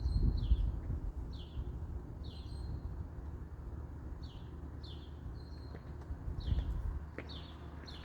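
A small bird chirping over and over, short high notes that slide downward, about one to two a second with a pause of a second or so in the middle. Under it runs a low rumbling noise, loudest in the first second.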